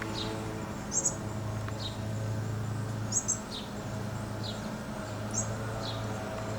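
A bird chirping over and over, about once a second: short high chirps alternating with quick falling notes. A steady low hum runs underneath.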